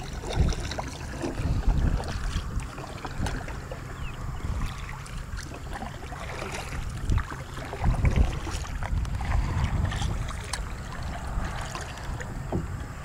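Wooden paddle stroking through calm water beside a small boat being paddled along, with light splashes and knocks. Wind buffets the microphone in gusts, the loudest about a second and a half in and again about eight seconds in.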